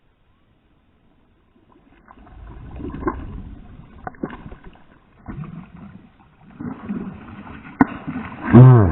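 Water sloshing and knocking around a kayak, with a few sharp knocks on the hull. Near the end comes a loud pitched sound that swings up and down in pitch.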